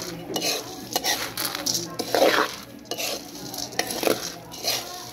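Coffee beans being stirred in a dry metal pan with a metal spoon while they roast: the beans rattle and slide across the pan in irregular scraping strokes, with the spoon now and then clinking against the metal.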